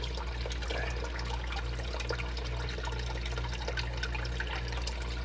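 Water trickling across a Miller table as it washes black-sand concentrate along the textured surface, with a steady low hum underneath.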